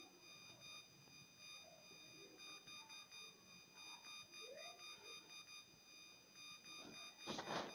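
Near silence with a faint steady high-pitched electronic whine made of several pitches. A brief burst of noise comes near the end.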